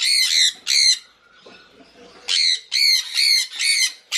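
Conure screeching: harsh, loud squawks, two near the start, then after a short pause a quick run of about five more.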